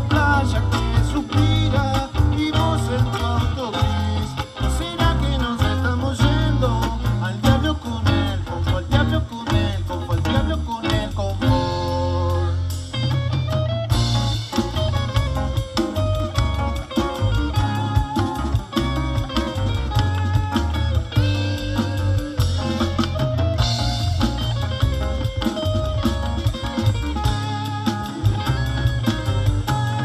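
Live rock band playing an instrumental passage on electric guitars, bass guitar and drum kit. About twelve seconds in, the drums drop out for a couple of seconds under held guitar notes, then the full band comes back in.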